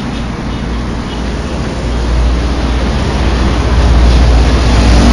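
Heavy truck passing close by on the road, its deep engine and tyre rumble growing louder from about two seconds in and loudest near the end.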